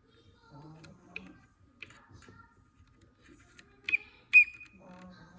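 Sharp clicks and taps from handling a plastic Transformers figure while stickers are applied, the loudest a pair of clicks about four seconds in. A low voice murmurs faintly twice.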